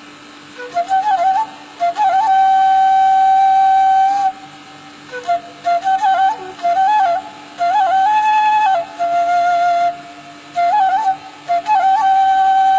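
Bamboo flute (seruling) playing a slow, lilting melody: quick ornamented turns leading into long held notes, in phrases separated by short breaths, over a faint steady hum.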